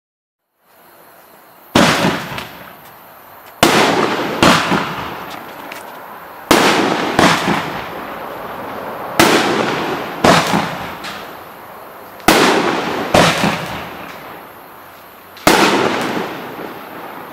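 FC5036-1 Furor 50 mm fireworks battery firing its shots: a faint hiss, then about eleven sharp bangs, mostly in pairs under a second apart every two to three seconds, each trailing off in a fading crackle.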